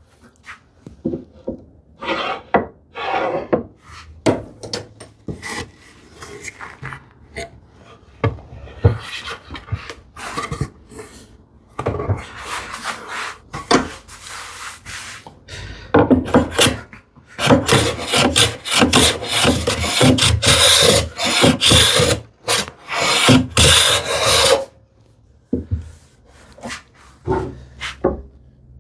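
Repeated rasping strokes of a hand tool cutting poplar, uneven at first, then a dense run of loud, regular strokes in the second half that stops a few seconds before the end.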